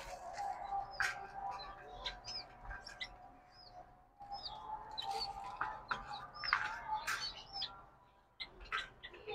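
Small cage birds chirping: many short, hooked chirps throughout. Mixed with light clicks and rattles of a wire cage door and a plastic seed feeder being handled.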